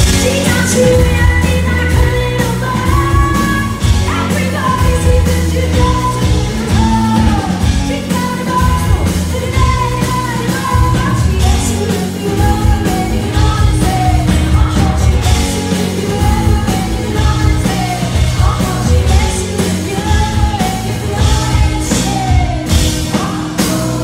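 Live rock-pop performance: a woman singing lead over a strummed acoustic guitar, backed by a band with a steady drum beat. Loud, recorded from within the audience.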